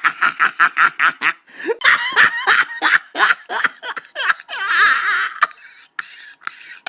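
Human laughter in quick repeated bursts, several a second. It ends after about four and a half seconds in a breathy, hissing intake, followed by a short lull.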